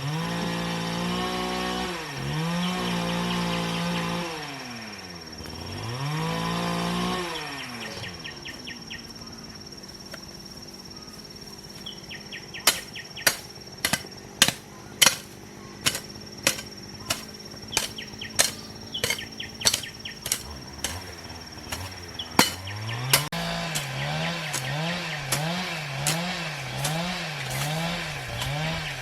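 Small engine-driven power tool revving up and holding high, then dropping back, twice. After a quieter stretch with a run of sharp knocks, about two a second, it runs again near the end, its revs rising and falling over and over as if working under load.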